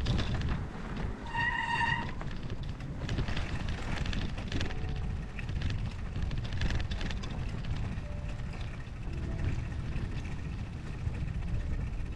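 Snowstorm wind buffeting the microphone in a steady, heavy rumble. A short high tone sounds once about a second and a half in.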